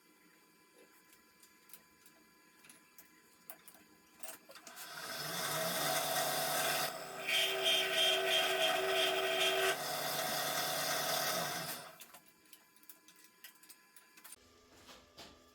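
Benchtop milling machine spindle spinning up, a 12 mm end mill plunge-cutting a bearing pocket into a steel knife blade for about three seconds, then the spindle winding down. Light clicks of handling come before it.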